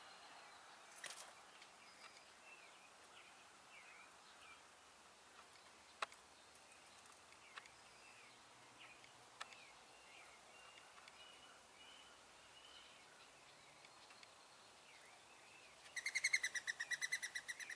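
Faint songbirds chirping, with a few light clicks. Near the end a bird sings a louder, rapid trill of quickly repeated notes lasting about two seconds.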